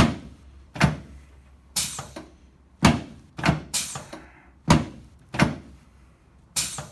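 Chiropractic adjusting table knocking under a run of quick thrusts: about nine sharp knocks roughly a second apart, each with a short ringing tail, during an adjustment of the right sacroiliac joint.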